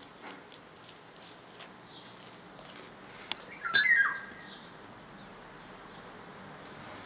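Eurasian golden oriole giving one short fluting phrase about four seconds in, falling in pitch at its end, with a few faint ticks before it.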